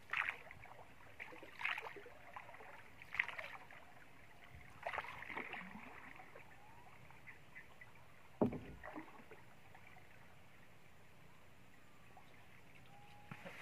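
Wooden canoe paddle dipping and pulling through the water in splashy strokes about every second and a half, then a single hard wooden knock a little past halfway, followed by quieter water sounds.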